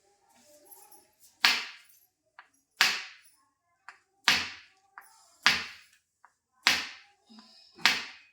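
Six sharp percussive hits at an even pace, about one every 1.2 seconds, each fading within half a second.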